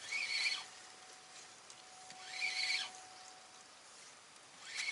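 A short, high animal call repeated three times, about two and a half seconds apart, over a faint steady tone that stops about two-thirds of the way through.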